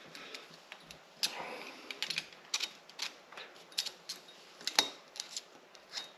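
Irregular small metal clicks and scrapes as a snap ring is worked down into its groove inside a KTM 300 fork tube, with one sharper click a little before the end.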